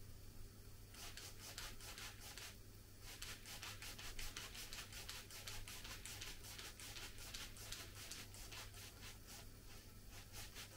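Hand ratchet clicking in quick, even runs as cylinder head bolts are run down. The clicking starts about a second in, breaks briefly between two and three seconds in, then keeps going until near the end.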